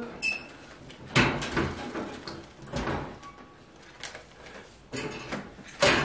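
Wire birdcage being opened and handled: a series of separate knocks, clanks and rattles spread over several seconds.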